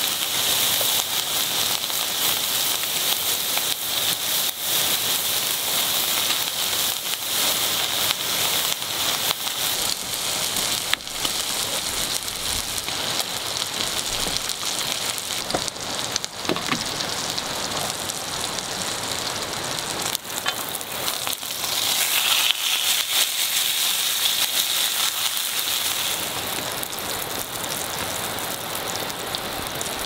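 Pork belly sizzling on a grill pan: a steady hiss of frying fat with frequent sharp crackles and spatters. The sizzle swells for a few seconds about three-quarters of the way through, then eases off.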